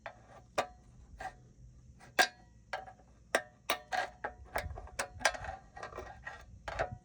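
Screwdriver working at the steel C-clip on a GE washer transmission's gear case: irregular sharp metal clicks and taps, some with a short ring, more frequent in the second half.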